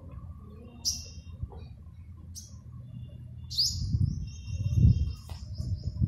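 A small songbird calling: a few short high chirps, then a sharp downward-sweeping call followed by a long, thin, high whistle. Under it, a low rumble on the microphone builds in the second half and becomes the loudest sound.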